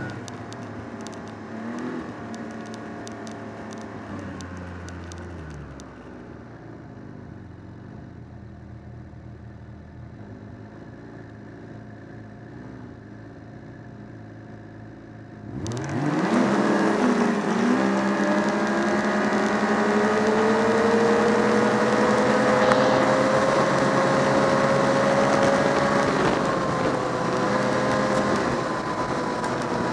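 Ski-Doo Renegade 1200 four-stroke triple snowmobile engine winding down and idling, then about halfway through the throttle is opened wide and the engine note climbs steadily and loudly as the sled accelerates hard.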